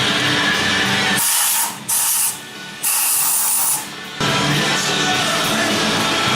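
Background music, cut by three short bursts of hissing between about one and four seconds in, while the music drops out beneath them.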